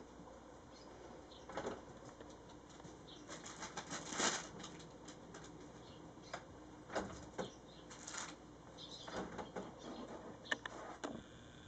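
Prairie dog scrabbling and burrowing in futon bedding and a loose cotton sheet: short bursts of fabric rustling and scratching at irregular intervals, the loudest about four seconds in.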